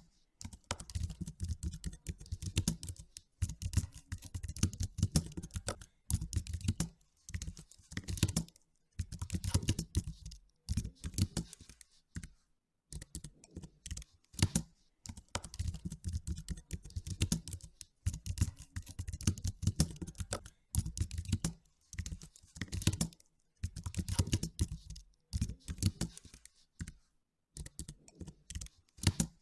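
Typing on a computer keyboard: runs of keystrokes lasting a second or two at a time, broken by short pauses.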